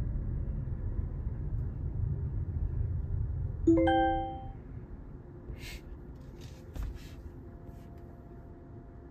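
Low car-cabin road rumble, then about four seconds in a two-note electronic chime, a ding-dong, after which the rumble drops off. A few faint clicks follow.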